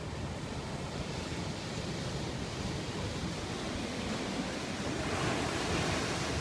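Sea surf washing onto a rocky beach, swelling to a louder wash near the end, with wind rumbling on the microphone.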